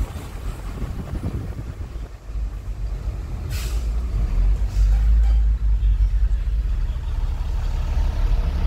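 Car cabin road noise while driving on a wet road: a steady low rumble, with a short hiss about three and a half seconds in.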